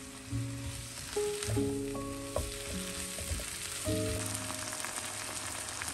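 Squid and chilies sizzling in a hot wok as they are stir-fried with a silicone spatula, with a few light scrapes and taps of the spatula against the pan. Soft background music notes sound over the frying.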